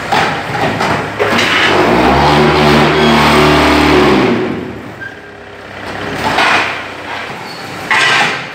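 Metcon MN3 concrete block machine running through its moulding cycle with dense mechanical noise. A loud, steady low hum builds for about two seconds in the middle, and a short hissing burst comes near the end.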